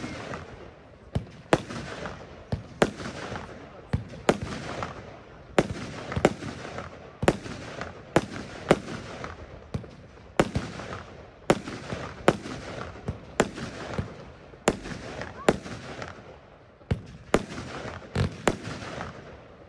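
Röder 'Billig und Willig Nr. 7' consumer (F2) firework battery firing shot after shot, about two sharp bangs a second, each trailing off before the next.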